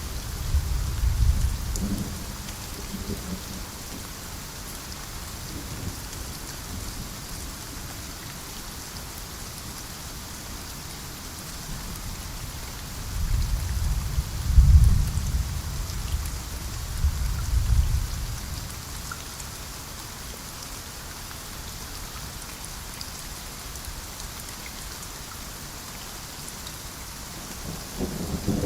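Steady rain falling, a constant hiss, with rolling thunder: a low rumble near the start, a longer and louder one around the middle, and another building near the end.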